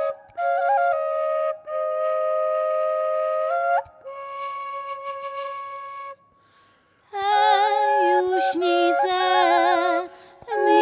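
Dwojnica, the Podhale double duct flute, playing a slow tune over a steady drone note, fading out and falling silent about six seconds in. About a second later women's voices begin singing a lullaby, with vibrato.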